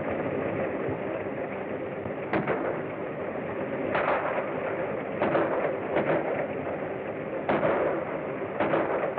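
Gunshots: single sharp reports at irregular intervals, about seven of them, a second or so apart. They sit over the constant hiss and hum of an old film soundtrack.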